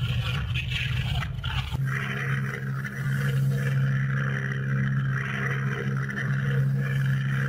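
Piston aircraft engines droning in old newsreel footage. The sound is rough and uneven for the first couple of seconds, then settles into a steady drone.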